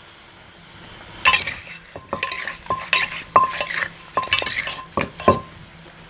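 Wooden pestle and metal spoon working a papaya salad in a clay mortar: after about a second, a busy run of clinks, scrapes and knocks against the mortar, with two heavier thuds near the end.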